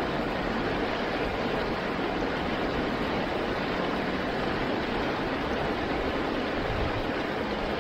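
River rapids rushing over boulders: a steady, even roar of whitewater.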